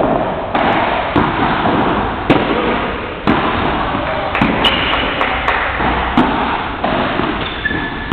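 Padel rally: the ball knocked back and forth by paddles and bouncing off the court and glass walls, a sharp knock every half second to a second, over steady background noise.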